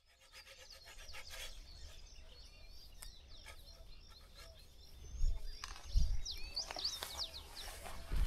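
Small birds chirping in many short calls, busier near the end, with a couple of low thumps about five and six seconds in.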